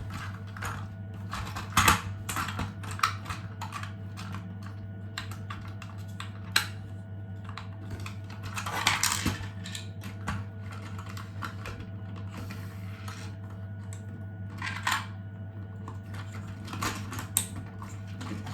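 Scattered light clicks and taps of small 3D-printed plastic toy parts being handled and fitted together, with a couple of short scraping slides, over a steady low hum.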